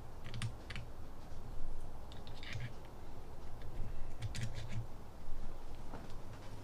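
Helicoil thread tap being turned by hand in a stripped bolt hole of a mower transmission case: irregular small metallic clicks and scrapes as it cuts new threads.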